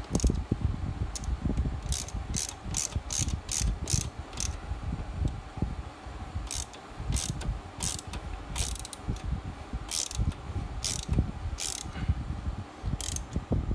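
Socket ratchet clicking in several short runs of a few clicks a second, with pauses between, as it drives the lower mounting bolt of a rear shock absorber tight by hand.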